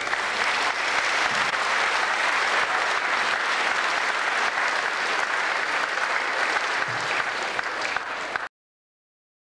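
An audience applauding steadily, a dense even clapping that cuts off abruptly near the end.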